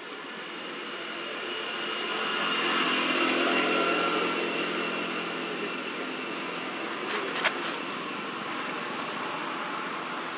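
Engine noise of a passing motor vehicle, a steady drone that swells to its loudest about three seconds in and then fades back. A few sharp clicks come about seven seconds in.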